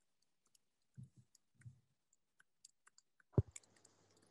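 Faint scattered clicks and a few soft knocks. About three and a half seconds in comes a louder thump, after which a low steady hum with faint hiss sets in.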